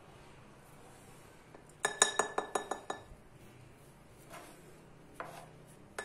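A spoon clinking against a drinking glass: a quick run of about eight ringing clinks about two seconds in, then a few single taps.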